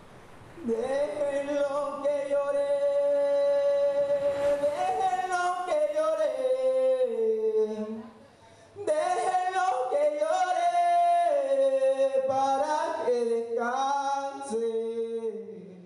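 A single voice singing unaccompanied. It holds one long note, moves through a melodic phrase, breaks off briefly about eight seconds in, then sings a second phrase that fades out near the end.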